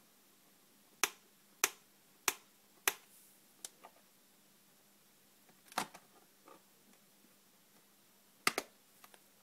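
Sharp plastic clicks and taps from handling the LG X130 netbook's case: four loud clicks about two-thirds of a second apart, then scattered smaller clicks, a louder cluster midway and a double click near the end.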